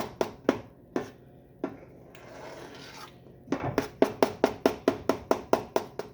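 Spoon stirring thick peanut butter fudge mixture in a pot, knocking against the pot about four times a second. The knocks stop for a couple of seconds, with a soft scrape in the gap, then start again.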